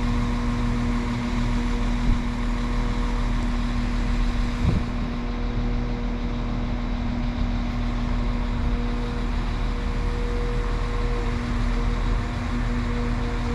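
Northern Class 195 diesel multiple unit standing at the platform with its engines idling: a steady hum with a low rumble.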